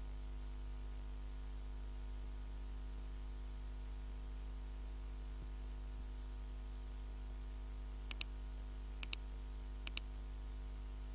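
Three computer mouse clicks about a second apart, each a quick press-and-release pair, over a steady low electrical hum and hiss.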